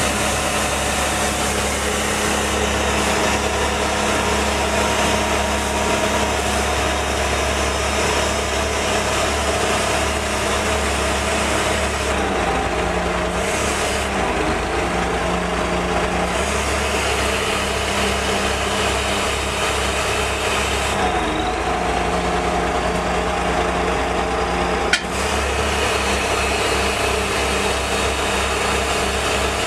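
Hook-lift truck's diesel engine running steadily while it powers the hydraulic arm tipping a loaded skip bin. Its note shifts up and down a few times, and there is a single sharp click near the end.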